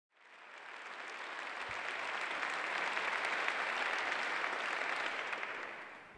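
Audience applauding, fading in about half a second in and fading out near the end.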